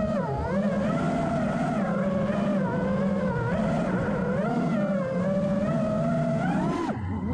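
FPV racing quadcopter's motors and propellers whining, the pitch rising and falling as the throttle changes while it chases a rider, with a brief break near the end.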